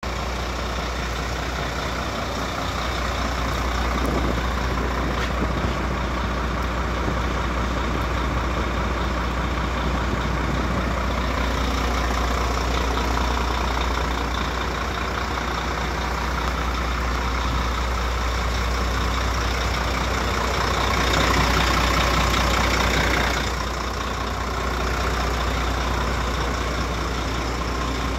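DAF CF 75 310 truck's diesel engine idling steadily, a constant low hum. For a couple of seconds about three-quarters of the way through, a louder rushing noise rises over it, then drops back.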